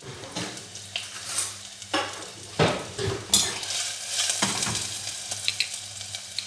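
Chopped onion frying in oil in a stainless steel saucepan on a gas burner, with a steady sizzle. The pan knocks and scrapes on the burner grate several times as it is moved and shaken, over a steady low hum.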